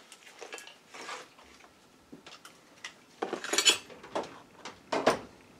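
Small clicks and clattering of a plug and cable being handled and plugged in, louder about three and a half and five seconds in, as the microscope's USB power cable goes into an extension cord.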